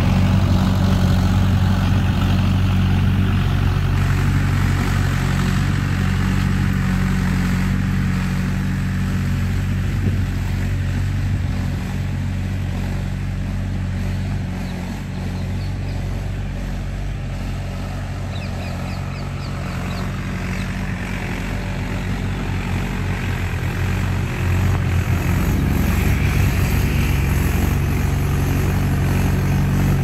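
A steady, low engine hum from a running motor. It dips slightly in the middle and picks up again about twenty-five seconds in.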